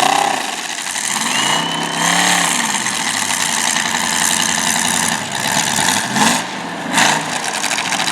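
Demolition derby car engines revving up and down several times over a constant noisy din, with two short loud bursts near the end.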